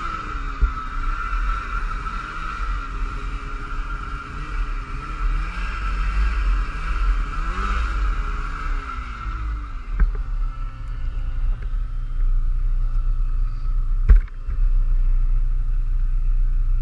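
Polaris Axys 800 Pro RMK snowmobile's two-stroke twin engine running under load in deep snow. Its revs rise and fall over the first ten seconds, then settle into a steadier, lower, louder drone. Two brief knocks sound, one about ten seconds in and one about fourteen seconds in.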